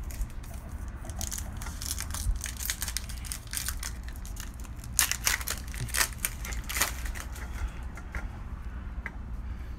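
Crinkling and crackling of a baseball card pack wrapper being torn open and handled, with a thick run of sharp crackles in the middle seconds.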